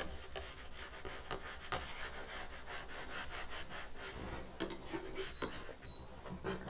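Spatula scraping and tapping lightly against a nonstick frying pan around a cooking gram-flour pancake: quiet, with scattered small clicks and a few sharper taps in the first couple of seconds.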